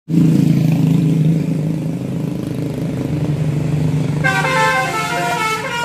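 A motor vehicle's engine running steadily, with a horn sounding about four seconds in and held, several tones at once.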